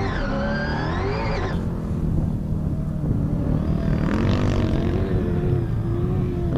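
Desert rally car's engine running hard at high revs, its pitch wavering with throttle and gear changes. After a cut the engine note rises as the car powers up a sand slope, with a brief hiss about four seconds in.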